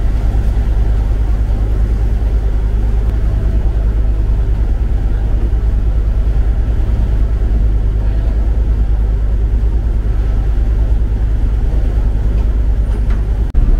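A ferry's engine running with a steady, loud, low drone, heard on board. The level dips briefly near the end.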